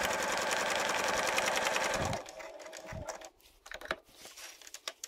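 Bernina 380 sewing machine stitching steadily at an even, fast rhythm, sewing the diagonal seam that joins two binding strips, then stopping about two seconds in. A few light clicks and fabric rustles follow as the work is drawn out from under the presser foot.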